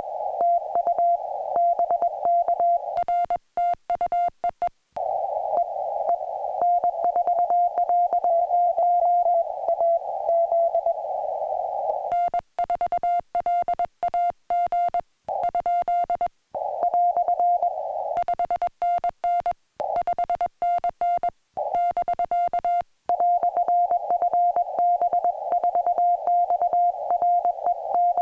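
Morse code (CW) on a portable ham radio transceiver: a single-pitch beep keyed on and off in rapid dots and dashes. Stretches of received code sitting in receiver hiss alternate with cleaner, hiss-free stretches of the operator's own sending sidetone.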